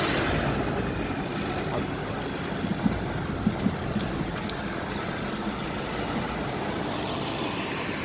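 City road traffic heard from a moving car: a steady run of engine and tyre noise, with a minibus driving alongside. A few faint clicks come in the middle.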